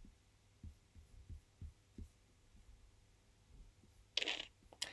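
Faint, irregular low thumps with long gaps between them, then a brief hiss about four seconds in.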